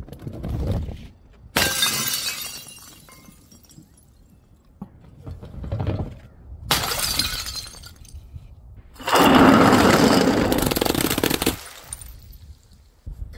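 Glass bottles shattering in a series of crashes: sharp breaks about a second and a half in and again around seven seconds in, each followed by tinkling that fades, then a longer, louder crash lasting over two seconds about nine seconds in.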